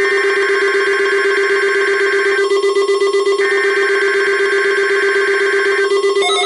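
Weather radio receivers sounding their alert alarms together, set off by the weekly test broadcast: a steady buzzing alarm tone with a fast pulse, under a higher beeping alarm that stops about two and a half seconds in and comes back a second later.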